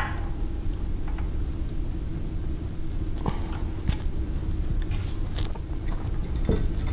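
Scattered light clicks and taps of a hand tool on metal as the stopper bolts of a surface-grinder attachment on a belt grinder are tightened, over a steady low hum.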